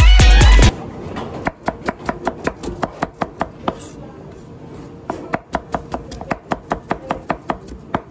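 Kitchen knife chopping vegetables on a cutting board: quick, even strikes about five a second, in two runs with a pause between. Music plays at the start and cuts off under a second in.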